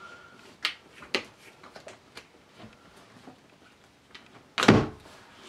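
Plastic-and-metal clicks and rattles of a TAPCO collapsible buttstock being worked loose on an SKS buffer tube, with a few sharp clicks in the first two seconds and one loud thump about four and a half seconds in.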